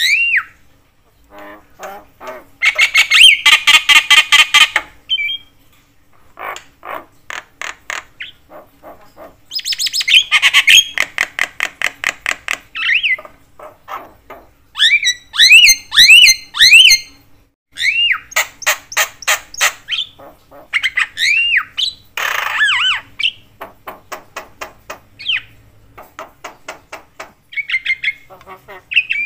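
Javan myna (jalak kebo) calling loudly and incessantly in phrases. Fast, harsh chattering runs alternate with short whistled notes that rise and fall, with brief pauses between phrases.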